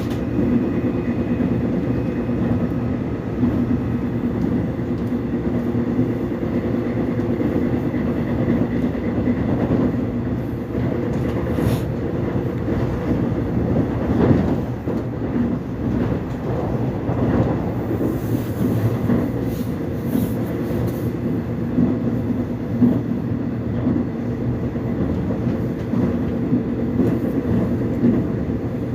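Korean subway train running along the track, heard from inside the carriage: a steady rumble with the clatter of wheels over rail joints.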